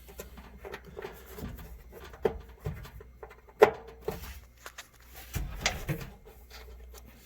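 Scattered small clicks and knocks of hands working wire connectors onto terminals inside a gas dryer, the sharpest click about three and a half seconds in.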